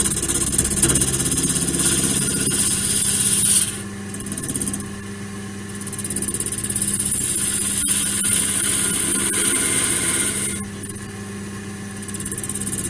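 Wood lathe running with a steady motor hum, and a high hiss from the spinning laurel workpiece being worked that comes and goes: on for the first few seconds, off, then on again for about four seconds before stopping.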